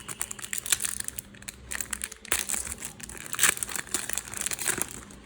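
A trading card packet wrapper being crinkled and torn open by hand: a dense, irregular run of crackling.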